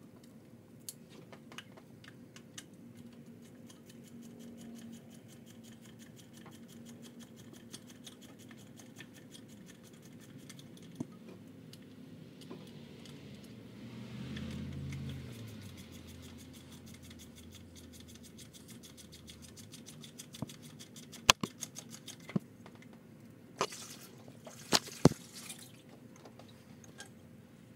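Hand tools and bolts clicking and clinking against metal while the timing-belt idler pulleys are being unbolted: scattered light ticks, a brief low hum about halfway, then a few sharp metallic clinks near the end.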